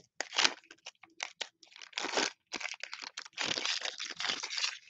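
Foil wrapper of a 2021 Panini Mosaic football card pack being torn open and crinkled as the cards are pulled out: a run of short crackles, then a longer crinkle near the end.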